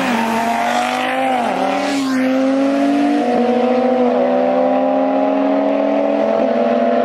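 Audi RS3 and a motorcycle accelerating hard away from the start line in a race, engine notes climbing and then dropping back at each upshift, several times over.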